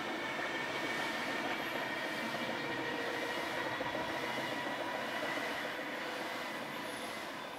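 Merseyrail electric multiple unit running away down the line, a steady rumble with a faint whine, fading slowly near the end as it recedes.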